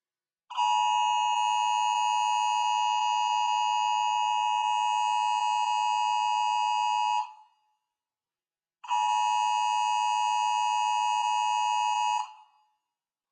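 Emergency Alert System dual-tone attention signal: two close pitches near 1 kHz sounded together as a steady, buzzy alarm tone. It sounds for about seven seconds, breaks off, and sounds again for about three and a half seconds.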